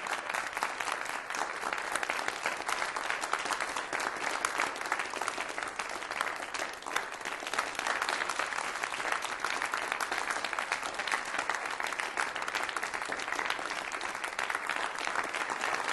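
Crowd applauding steadily, a dense even clapping of many hands.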